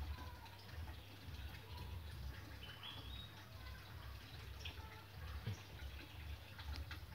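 Faint soft clicks and rustles of fingers working loose planting medium around bare bonsai roots, over a steady low rumble. A single short bird chirp sounds about three seconds in.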